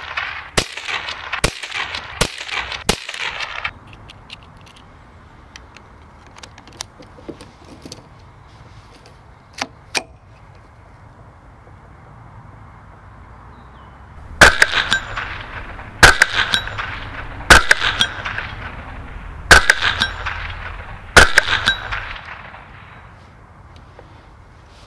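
CZ 512 semi-automatic .22 WMR rifle with a moderator on the muzzle, firing. There is a quick string of shots in the first few seconds, then five more shots about a second and a half apart, each with a short ringing tail.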